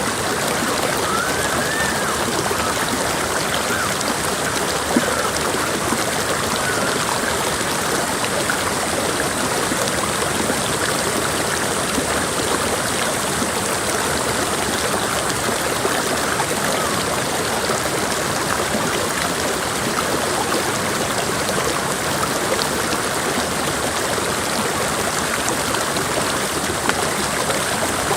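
Creek water flowing steadily, an even, unbroken rush of stream noise.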